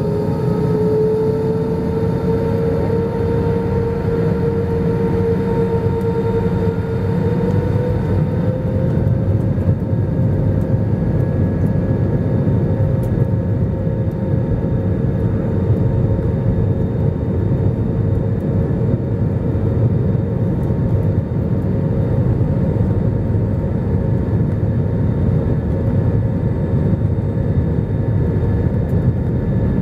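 Airbus A320's IAE V2500 turbofan engines heard from the cabin beside the wing, spooling up: a whine rising in pitch over the first eight seconds or so, then holding steady over a constant rumble.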